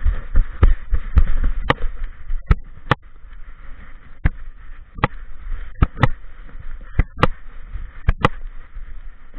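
Thuds and knocks from an action camera strapped to a moving dog: a quick run of low thuds in the first two seconds, then sharp knocks every half second to a second, over a steady hiss.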